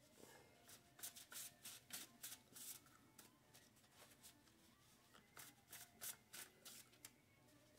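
A deck of tarot cards being shuffled: a faint run of short, quick card flicks in irregular clusters, easing off in the middle and picking up again.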